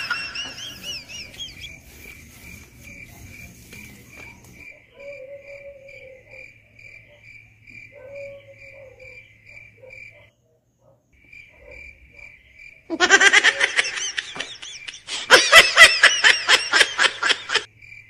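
Crickets chirping steadily, about two high chirps a second, for most of the stretch. Loud laughter breaks in twice in the last few seconds.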